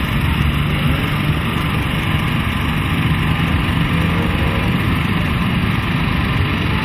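Engines of several off-road racing trucks running hard around a dirt track, heard as a steady, noisy engine drone with no single event standing out.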